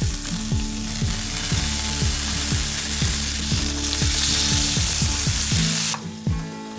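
A block of beef searing in oil in a Tefal nonstick frying pan, sizzling steadily, cut off abruptly about six seconds in. Background music with a steady beat plays underneath.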